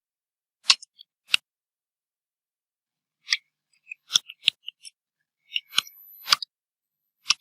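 Computer keyboard keystrokes: scattered single clicks and short runs of keys, with pauses between.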